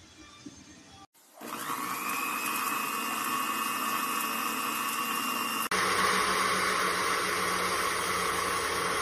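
NewFeiMall CASSIUS 300W blender starting about a second in, its motor whine rising to a steady pitch as it spins an empty glass jug. A little past halfway it cuts abruptly to a louder, fuller run as the blender purées a thick green drink.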